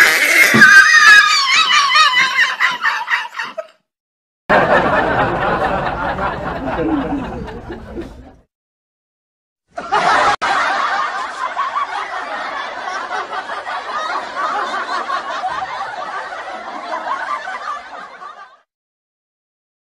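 Laughter, snickering and chuckling, in three separate stretches that each cut off abruptly into silence: edited-in laugh sound effects.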